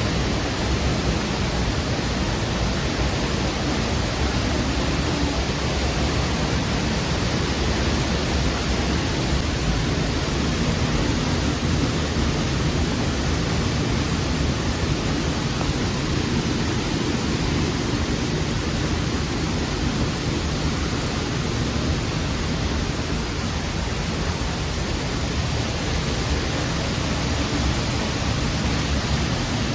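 Steady roar of a tall waterfall, a constant rushing hiss that holds at the same level throughout.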